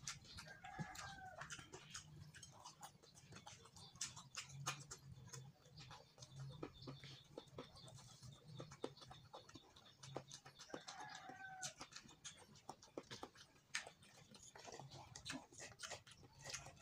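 Close-up eating sounds: many small wet clicks and smacks of chewing and lips as rice and fish are eaten by hand. An animal gives a short call twice, about a second in and near eleven seconds.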